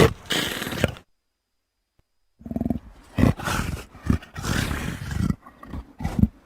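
Big-cat roar sound effects, a mix of leopard, cougar and lion roars: one roar cuts off about a second in, then after a short silence comes a string of roars of differing lengths, one after another.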